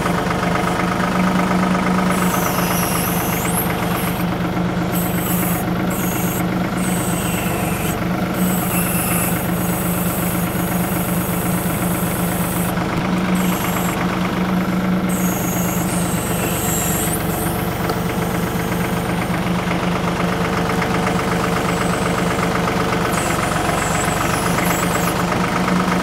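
TYM 2515H compact tractor's diesel engine running steadily while the BH150 backhoe is worked. Brief high squeals come through about three times.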